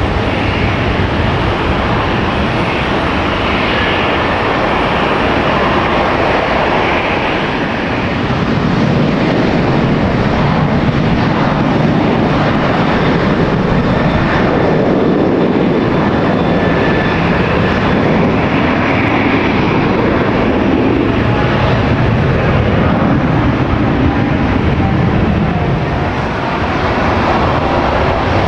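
Airliner engines running loud and steady, a dense rushing noise with slow swells and a faint high whine.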